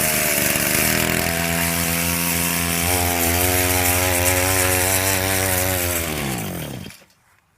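Two-stroke chainsaw engine on a homemade minibike held at high revs, stepping up in pitch twice in the first few seconds, while its clutch slips and smokes instead of driving the bike. Near the end the revs fall away and the engine stops. The clutch is probably mostly burnt up.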